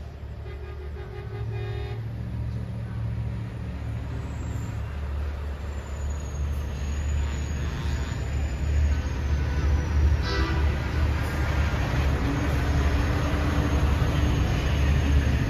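Semi trucks in a convoy rumbling past with their horns blowing: a short horn blast near the start and a longer one from about ten seconds in. The engine rumble grows louder as the trucks come closer.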